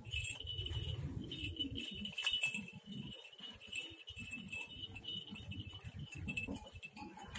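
A small bell tinkling steadily for several seconds, over a low, irregular rumble.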